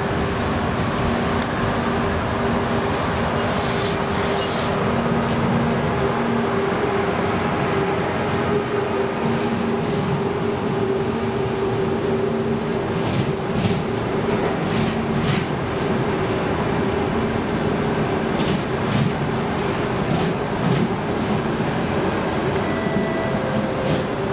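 Express passenger train passing at speed: an ЭП2К DC electric locomotive goes by, then its passenger coaches roll past, a steady rumble of wheels on rails with a constant hum and occasional clicks.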